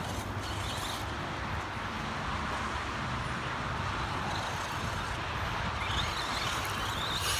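Radio-controlled truck's electric motor whining faintly over steady background noise, the whine wavering up and down in pitch as the truck speeds up and slows, clearest near the end.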